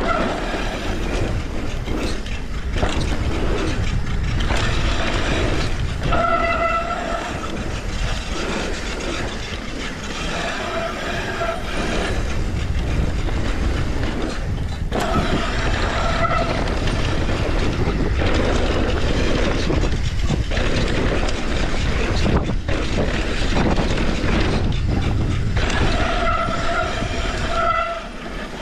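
Mountain bike descending a dirt trail, heard from a body-mounted action camera: steady wind rush over the microphone and tyre and bike rattle over bumps. A whining tone comes and goes several times.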